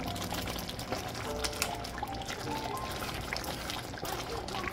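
Chicken legs simmering in tomato sauce in a pot, the sauce bubbling with many small pops and crackles. Soft background music plays along.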